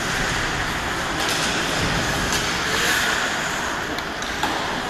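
Ice hockey rink noise: a steady scraping hiss of skates on the ice, with a few sharp stick-and-puck clacks, the loudest about four and a half seconds in.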